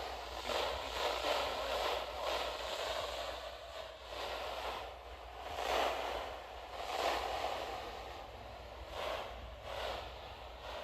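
Radio static from a weather radio receiver: a hiss that swells and fades irregularly over a steady low hum, with no clear voice coming through.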